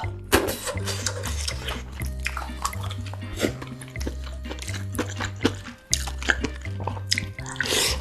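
Close-miked eating sounds: wet smacking, slurping and chewing clicks, over background music with a steady bass line.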